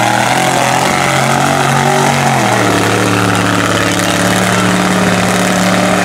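Lifted mud truck's engine running at high revs under full throttle through a mud pit, its pitch dropping to a lower steady note about two and a half seconds in, over a steady hiss.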